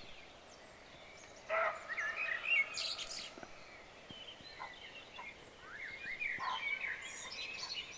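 Songbirds singing in quick whistled phrases, in two busy spells, with a short louder call about one and a half seconds in.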